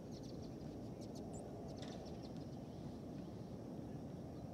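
Birds giving short, faint high chirps, most of them in the first two seconds, over a steady low rumble.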